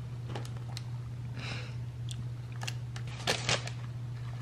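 Small handling sounds of eating from a crusty sourdough bread bowl: faint clicks of a metal spoon in the soup, then a short crisp crackle about three seconds in as the crust is broken. A steady low hum sits underneath.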